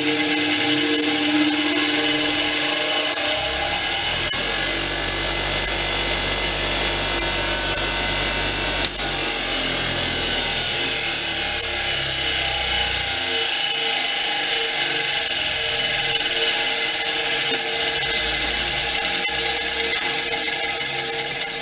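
Bench grinder running with a 150 mm wire wheel fitted: a steady motor whir with a strong hiss. It begins to fade near the end as it runs down.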